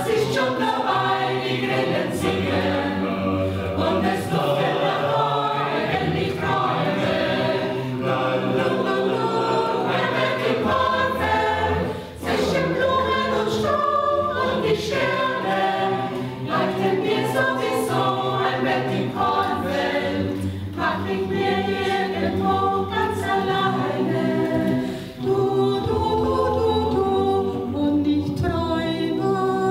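Mixed choir of men's and women's voices singing a German schlager song, with two brief breaths between phrases.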